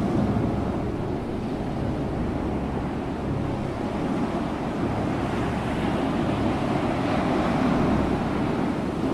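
Ocean waves breaking and washing on a shore, a continuous rushing surf that swells slightly in the latter part.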